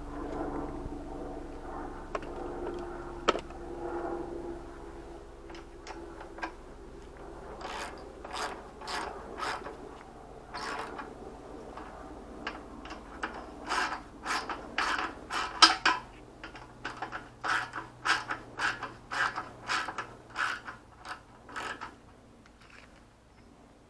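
A socket ratchet wrench turning the fuel tank's rear mounting bolt on a motorcycle, its pawl clicking in quick runs on each back-stroke. The clicking starts several seconds in and stops shortly before the end.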